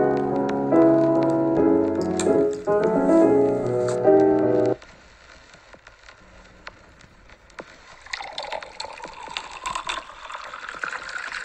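Gentle piano background music that stops abruptly about halfway through. It is followed by quiet rustling and light plastic clicks of pens being handled and tucked into a fabric pencil case.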